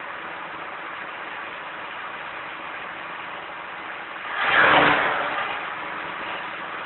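Forage harvester running steadily as it chops clover for silage and blows it out in a spray. A louder rushing surge comes about four and a half seconds in.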